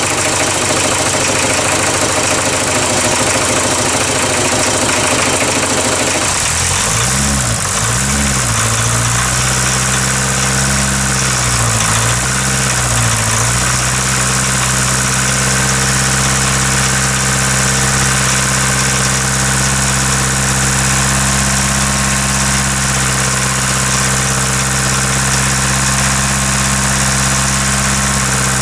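1977 VW Rabbit four-cylinder diesel engine idling rough on a cold start, running on three cylinders because one injector still has air to bleed out. About six seconds in the revs rise and fall a few times, then it settles to a steady idle.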